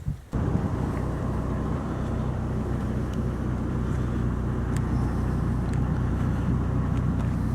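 Vehicle running with a steady low engine hum and road rumble, starting abruptly about a third of a second in.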